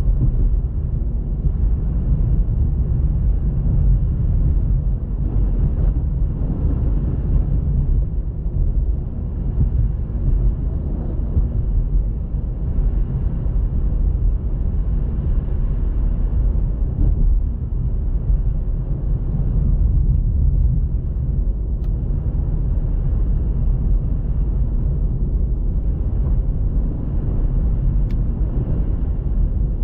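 A car on the move: a steady low rumble of engine and road noise that holds even, with no sudden sounds.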